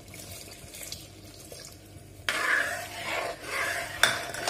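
A pot of rice, beans and jaggery syrup simmering faintly; about two seconds in, thin second-extract coconut milk is poured in and worked through with a metal ladle, with a single clink of the ladle against the pot near the end.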